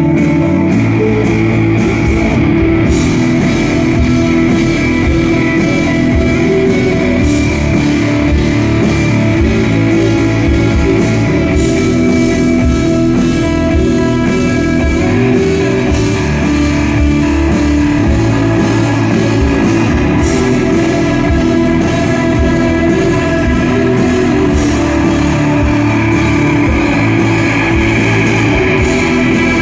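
Live rock band playing loud through amplifiers: electric guitars, bass guitar and drum kit together in a steady, unbroken passage.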